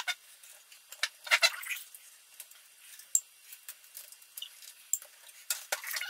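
Metal clicks and clatter of a steel PC case's panels being handled and unclipped, with a cluster of clinks about a second and a half in and another near the end.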